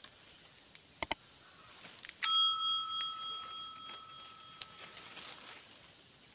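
A double mouse click, then about two seconds in a single bright bell ding that rings out and fades over a couple of seconds: the click-and-bell sound effect of a YouTube subscribe-button animation.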